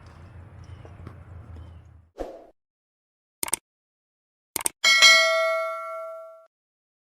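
A low rumble cuts off abruptly about two seconds in, followed by a few short clicks and then a single loud bell-like ding that rings and fades over about a second and a half.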